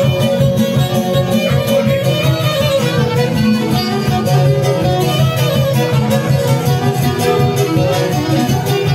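Live folk band playing an instrumental kolo tune: a violin carries the melody over a strummed tamburica and a steady pulsing rhythm.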